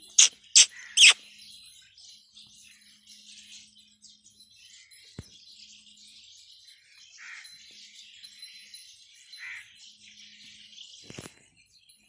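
Small birds chirping steadily in the background. Three loud sharp clicks come in the first second, with a single click about five seconds in and another near the end.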